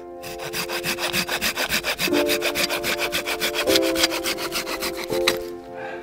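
Folding hand saw cutting through a dead branch in quick, even back-and-forth strokes, stopping about five and a half seconds in. Background music with sustained chords plays underneath.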